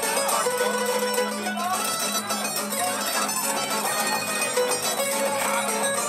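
Tamburica band playing live: a quick plucked melody on a small tamburica over acoustic guitar chords and a steady plucked bass line.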